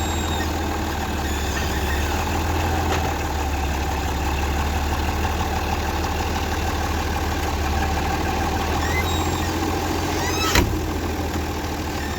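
Steady low drone of running farm machinery, with one sharp click about ten and a half seconds in.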